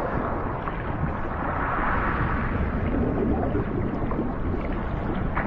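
Steady rushing water noise heard underwater on a night dive, swelling for a second or so about two seconds in.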